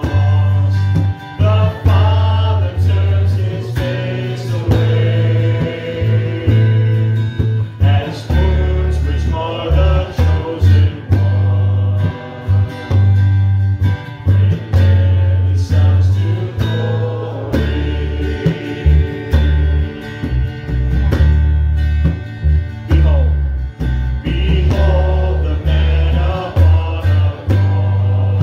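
Live worship band playing a song: electric bass guitar, strummed acoustic guitar and a hand-played conga drum, with voices singing over them.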